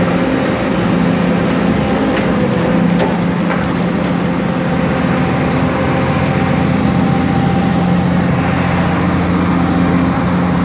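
Diesel engine of a tracked demolition excavator running steadily as its grab works. A few faint knocks of debris come between about two and three and a half seconds in.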